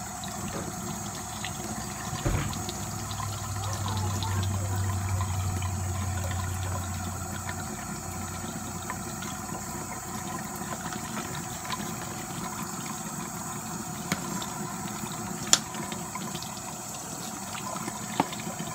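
Water running steadily from a sink faucet while hands rinse something under the stream. A low hum comes in about three seconds in and fades after a few seconds, and there are a couple of sharp knocks near the end.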